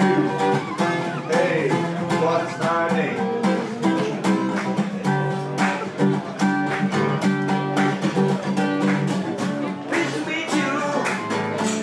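Acoustic guitar strummed in a steady rhythm, playing as music through the whole stretch.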